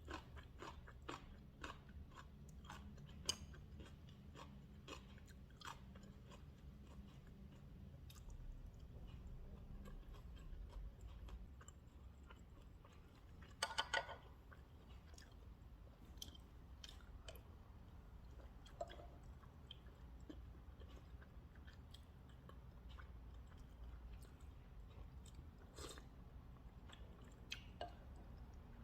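A person chewing food up close, with soft crunches and scattered small clicks. A quick run of louder clicks comes about halfway through.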